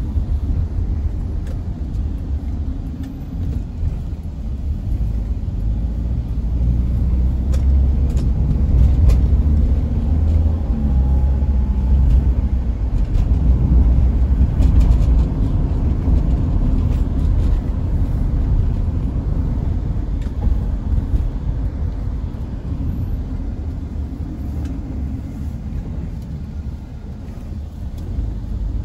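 Low rumble of a road vehicle heard from inside the cabin while it drives, engine and road noise growing louder through the middle and easing off near the end.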